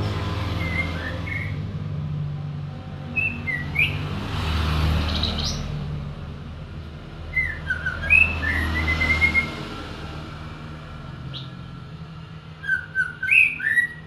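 White-rumped shama (murai batu) singing in a cage: short, clear whistled phrases in about four groups with pauses between, mixed with a few sharp higher notes.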